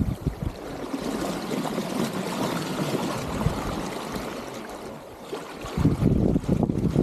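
Water rushing and splashing along the hull of a small SCAMP sailboat under sail, with a heavier low rumble from about six seconds in.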